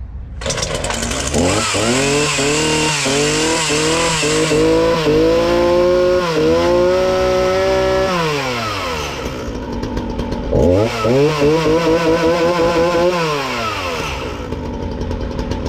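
Ryobi 37cc two-stroke chainsaw engine running and revved: quick throttle blips, then held at high revs, dropping back about 8 seconds in, revved up again and dropped back near the end. It runs and takes throttle on the run setting after a carburetor rebuild, where before it would only run on choke.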